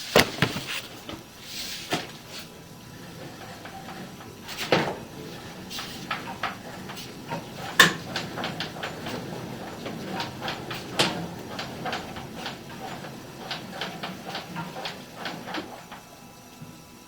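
Water running and dripping inside a sewer drain line at a tee fitting, with many irregular sharp drips or knocks over a faint steady trickle. The water is pooling at the bottom of the tee instead of flowing straight out.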